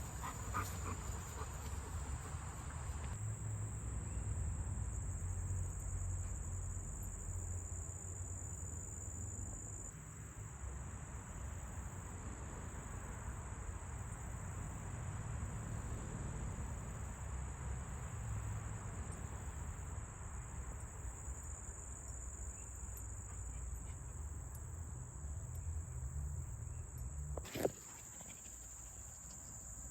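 Steady insect chorus, a continuous high-pitched buzz, over a low rumble. A single sharp click comes near the end.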